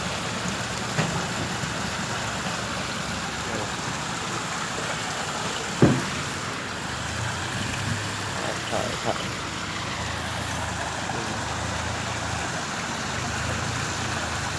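Steady rush of falling water from a waterfall, with one sharp knock about six seconds in.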